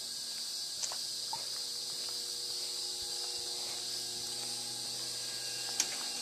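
Steady high-pitched chirring of crickets and other insects, with a couple of faint clicks, one about a second in and one near the end.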